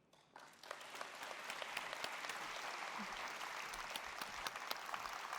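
Audience applauding, starting about half a second in and swelling to a steady clapping.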